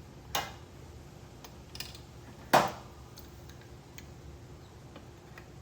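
A few light clicks and knocks as a UV bulb is slid into its plastic chiller UV chamber, the loudest about two and a half seconds in.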